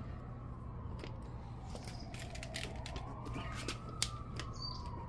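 A siren wailing, its pitch slowly falling, rising to a peak about two-thirds of the way through, then falling again, over a low steady hum, with scattered sharp clicks.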